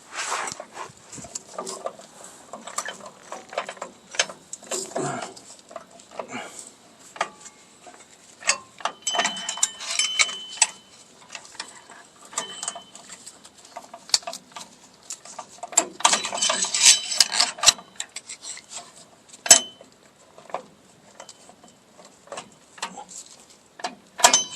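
Metal clinking and scraping of a tool and a return spring against drum brake shoes and hardware while the spring is stretched into place, in scattered clicks with two busier bursts of ringing clinks about 9 and 16 seconds in.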